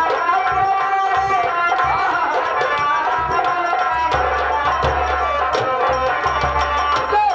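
Live nautanki folk music: a sung melody held and bent over steady, regular drum beats.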